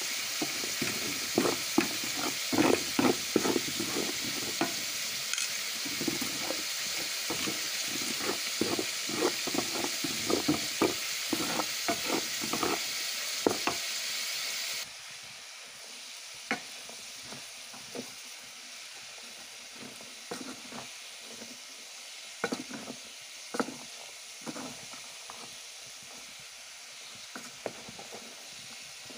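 Chopped onion frying in hot fat in a metal pan: a steady sizzle with frequent clicks and scrapes of a wooden spoon stirring. About halfway through the sizzle drops away abruptly, leaving a faint hiss and occasional spoon clicks against the pot.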